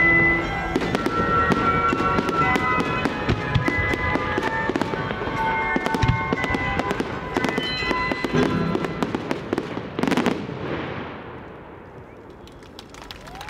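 Professional fireworks display: rapid bangs and crackling from aerial shells going off one after another over music, with a heavy cluster of bursts about ten seconds in, after which the firing thins out and grows quieter.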